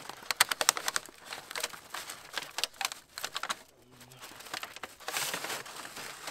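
Thin stainless steel stovepipe sheet crinkling and clicking in quick clusters as gloved hands bend it and work its edges together into a rolled pipe, with the tarp beneath rustling.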